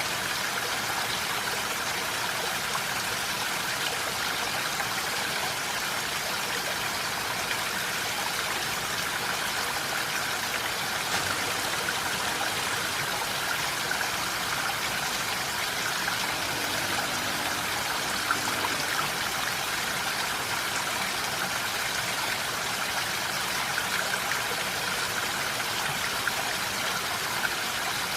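Steady rain falling in a forest: an even, unbroken hiss with a few louder drops ticking through it.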